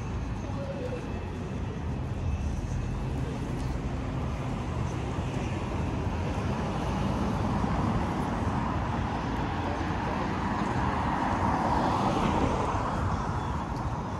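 City street traffic: cars going by with a steady rumble, one passing close and swelling louder about twelve seconds in before fading.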